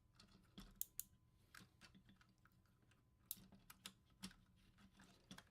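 Hard plastic parts of a Transformers Voyager class Soundwave figure clicking and snapping as it is handled and folded during transformation: a quiet, irregular run of small clicks, a few sharper ones about a second in and past the middle.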